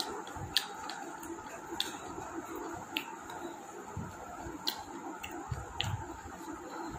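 Close-up eating sounds: about six sharp, scattered mouth clicks and smacks while chewing, over a steady electric fan hum.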